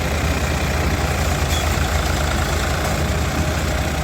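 Tractor engine and corn silage harvesting machinery running steadily, a low, even rumble.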